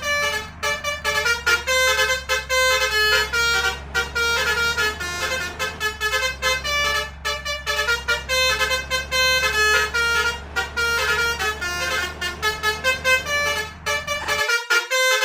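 Bus's basuri multi-tone musical horn playing a fast melody of short notes, over a steady low engine rumble that drops out near the end while the horn goes on.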